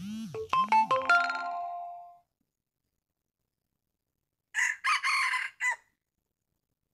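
A short burst of ringing, chime-like tones in the first two seconds, then a red junglefowl rooster's crow about four and a half seconds in: one short, harsh, broken crow lasting about a second.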